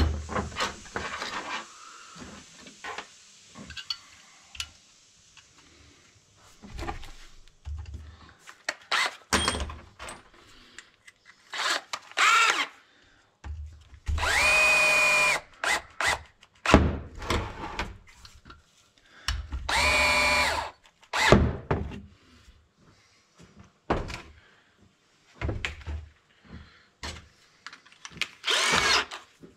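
Cordless drill-driver running in four short bursts, the longest about two seconds, each spinning up to a steady whine as it drives the bolts back into a Husqvarna 61 chainsaw's muffler. Between the runs, tools and parts clink and knock on a metal workbench.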